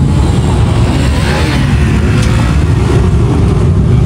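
Motorcycle engines running and revving, a loud steady low rumble.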